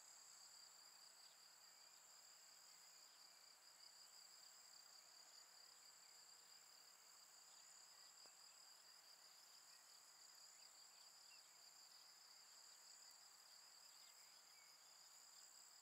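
Faint, continuous high-pitched trill of a singing insect, steady and unbroken, over a quiet outdoor hiss.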